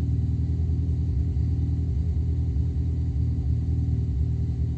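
Mini R56's four-cylinder petrol engine idling with an uneven, stumbling beat: a misfire on cylinder 3, audible by ear.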